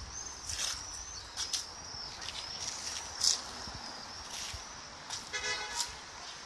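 A duck moving about in a garden with scattered rustling and scratching, and one short nasal call a little after five seconds in, over a steady high-pitched whine.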